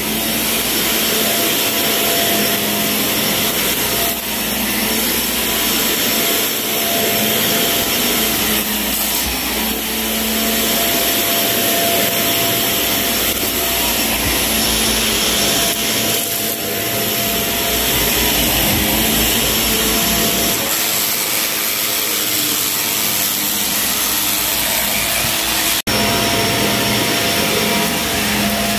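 Shark vacuum cleaner running steadily over a dirty carpet, its motor whine mixed with the rough crunching of grit and debris being pulled up. The sound cuts out for an instant near the end.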